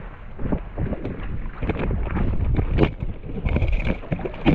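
Wind buffeting the microphone in uneven low rumbles, with water splashing irregularly against the side of a small boat's hull.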